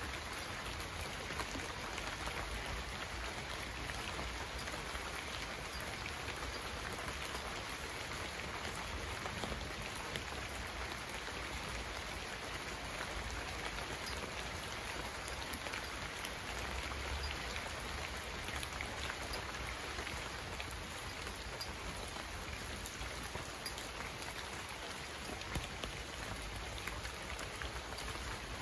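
Steady rain falling: an even, dense hiss of drops with faint individual drop ticks, holding at one level throughout.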